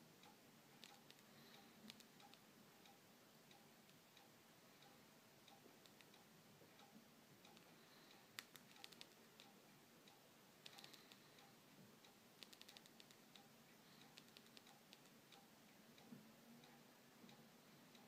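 Near silence: a faint steady ticking, with soft clicks in small clusters about halfway through and later, from the phone's keys being pressed while its menus are worked.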